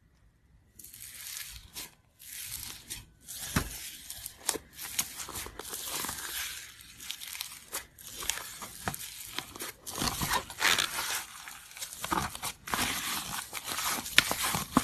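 Slime being squeezed and worked by hand close to the microphone, a dense crackling with many sharp little pops and clicks.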